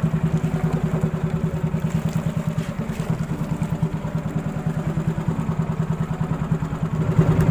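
Engine of a small motorised outrigger boat (bangka) running steadily under way, with a fast, even chug.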